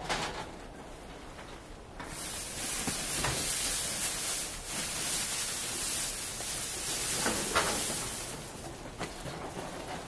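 Dry hay being handled and pulled apart, a dense rustling hiss that starts about two seconds in and fades near the end, with a few light knocks.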